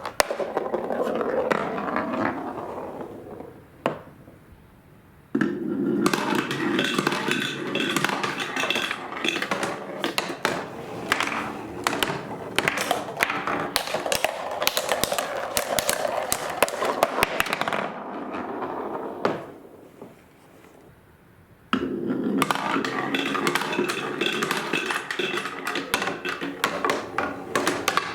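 Many marbles rolling and clattering down a wooden marble run, with a dense patter of clicks and knocks. The rolling dies away twice and then starts again suddenly at full strength as a new run of marbles sets off.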